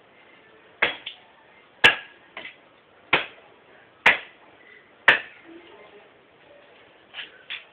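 Wood being chopped by hand: five hard, sharp blows about a second apart, then two lighter strikes near the end.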